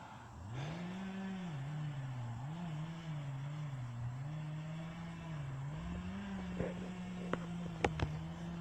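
Chainsaw revving up and cutting, its pitch sagging and recovering under load, then holding steady at full throttle. A few sharp knocks near the end.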